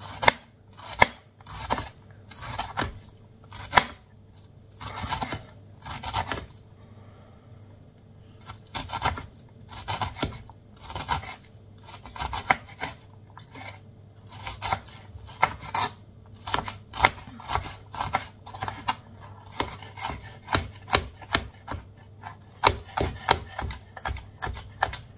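Kitchen knife finely chopping onion on a cutting board: irregular runs of quick knife strikes, with some longer scraping strokes between them.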